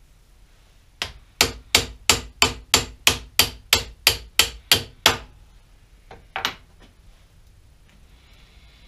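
Hand hammer, brass-coloured, striking a part on a metal lathe's slide assembly: about thirteen hard, evenly paced blows at roughly three a second, each with a short metallic ring, then two lighter taps.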